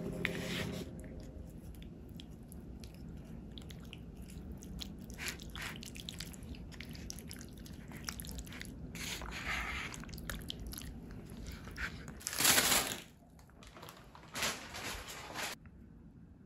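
Chopsticks stirring and lifting cheese-covered rice cakes in tteokbokki sauce in a plastic takeout bowl: a sticky, wet squelching with small irregular clicks. There is a louder burst of noise about twelve seconds in. Background music fades out in the first second.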